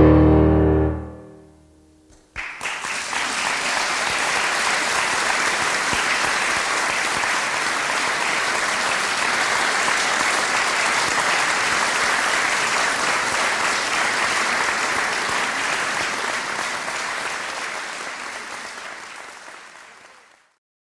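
A loud, low final piano chord rings and dies away. After a brief pause, audience applause breaks out suddenly, holds steady, then fades out.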